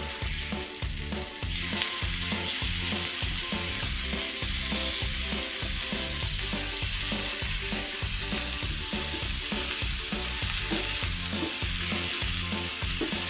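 Tilapia fillets frying in hot mustard oil in a nonstick pan: a steady sizzle that gets louder about a second and a half in, with a wooden spatula turning the fish.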